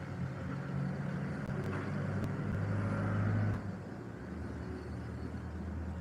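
Low, steady engine hum, louder for the first three and a half seconds, then dropping off suddenly and running on more quietly.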